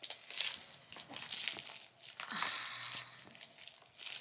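Irregular rustling and crinkling of packaging being handled as a pair of sunglasses is unpacked from a soft drawstring pouch.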